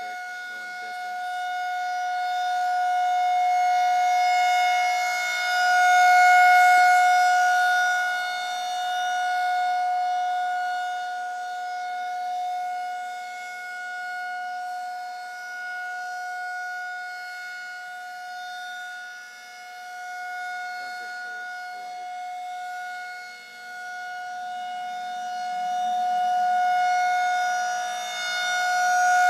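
Federal Signal 2000 outdoor tornado warning siren sounding a steady single-pitch alert tone. Its loudness swells and fades over several seconds, loudest about six seconds in and again near the end.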